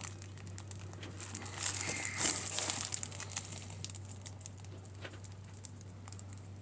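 Stiff sailcloth crinkling and rustling as it is handled during hand-stitching, with small scattered clicks, loudest about two seconds in.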